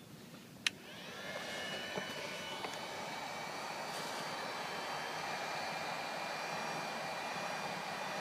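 A sharp click, then an electric heat gun starts about a second in, its fan whining up to speed and then blowing steadily. It is blowing hot air to melt a beeswax, boiled linseed oil and turpentine paste into canvas.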